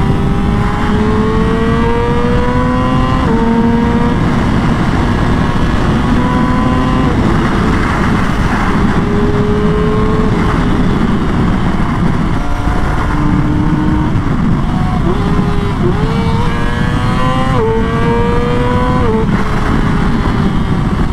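Yamaha R6 RJ15's 600cc inline-four engine running at high revs under hard acceleration at very high speed, with heavy wind rush. Its pitch climbs slowly, with several sudden drops as it shifts gear or the throttle eases, the largest about twelve seconds in, then climbs again through quick upshifts.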